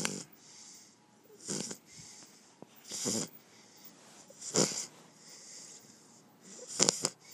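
Shar pei dog snoring in its sleep: a snore about every one and a half seconds, with fainter wheezy breaths between them.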